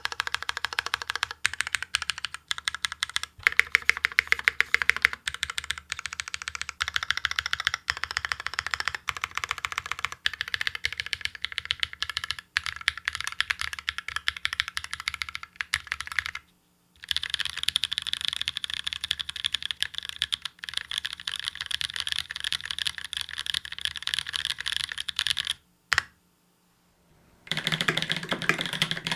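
Fast, continuous typing on a Space65 R1 mechanical keyboard with Holy Panda tactile switches and GMK Apollo keycaps: a dense stream of key clacks, with two brief pauses in the last third. Near the end, after the second pause, the typing resumes with a fuller, deeper tone.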